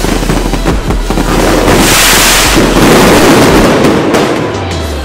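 Aerial fireworks bursting and crackling, with a loud hissing burst about two seconds in.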